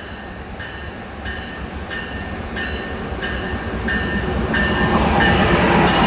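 Amtrak passenger train led by a GE Genesis diesel locomotive approaching and drawing alongside, its rumble growing steadily louder. A bell, the locomotive's bell, rings over it about one and a half times a second.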